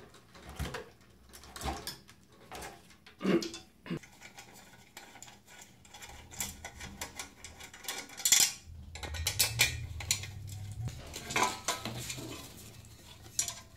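Handling noise from a CRT picture tube and its metal mounting frame being taken apart: scattered light clinks and knocks of metal parts, with a few sharper knocks.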